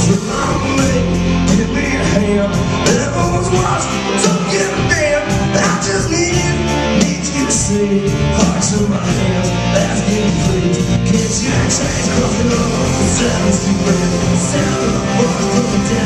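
Rock band playing live: electric guitars and bass over a steady drum beat.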